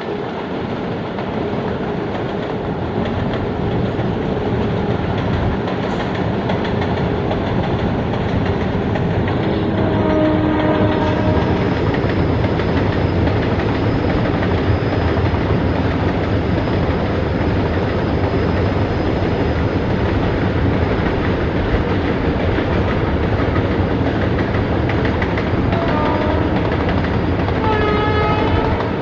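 Long freight trains running, a continuous rumble of wheels and wagons that slowly builds. A locomotive horn sounds briefly about ten seconds in and gives several short blasts near the end.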